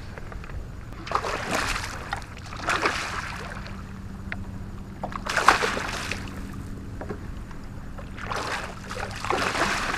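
Water sloshing and splashing against a kayak in uneven surges every two to three seconds, the loudest about five and a half seconds in.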